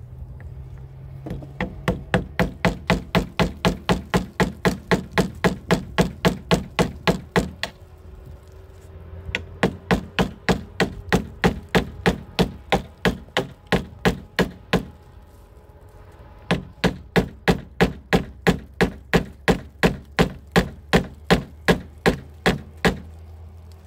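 Hammer driving nails into plywood in three long runs of quick, even strikes, about four a second, with short pauses between the runs.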